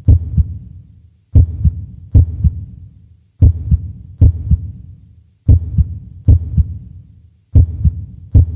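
Slow, deep heartbeat sound effect: a double thump, lub-dub, repeating about every two seconds, each pair trailing off in a low rumble.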